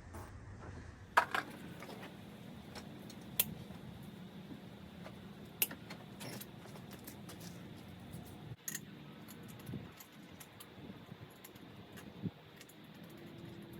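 Metal tools and car parts clinking and tapping by hand during a car teardown: about half a dozen sharp clicks a few seconds apart over a faint steady hum.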